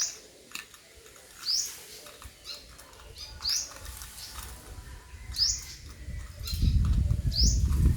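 A bird repeating a short, rising chirp about every two seconds, with faint light clicks between the calls. About six and a half seconds in, a low rumble builds and is the loudest sound to the end.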